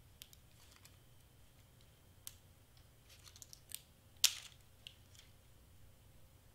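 Scattered small clicks and crackles from handling cardstock pieces and Zots adhesive glue dots, with the sharpest crackle a little over four seconds in.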